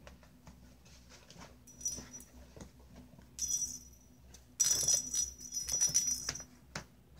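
A bell inside a small plastic cat-toy ball jingling and rattling as kittens bat at it. It comes in short bursts, with a longer spell of jingling in the second half.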